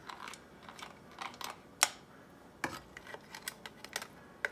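Metal serving utensil and hard crab shells clicking and tapping against a pan and a ceramic plate as seafood spaghetti is dished up: a run of light, irregular clicks, with a sharper clack a little under two seconds in.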